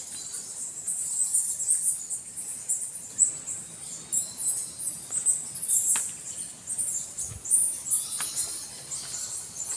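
Dense, high-pitched squeaking and chirping chatter of small animals that goes on without a break, with a few faint clicks and a soft bump about seven seconds in.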